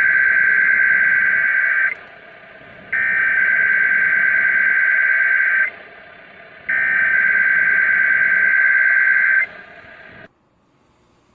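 NOAA Weather Radio SAME digital header: three identical bursts of harsh data tones, each nearly three seconds long with about a second between them, heard over radio receiver hiss. This is the encoded header that opens the Required Weekly Test, and the hiss cuts off about ten seconds in.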